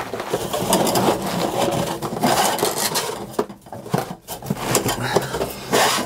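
Gear being rummaged and dragged about in a pickup bed: irregular rubbing and scraping with knocks, over a steady low hum.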